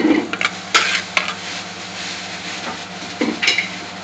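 Metal serving spoon scraping and knocking against a pan and a ceramic serving dish as thick, creamy curry is spooned out. A few short, sharp scrapes come near the start and about a second in, and more just past three seconds, over a steady background hum.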